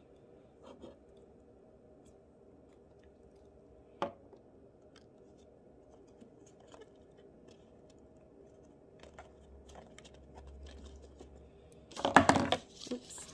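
Paper and a glue stick being handled on a wooden desk: soft rustles and a sharp click about four seconds in, then a loud burst of rustling and knocking near the end.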